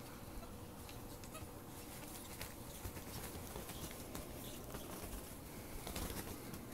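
Two ferrets wrestling and scrambling over bedding: soft rustling of fabric and many short scratchy clicks, busiest about six seconds in.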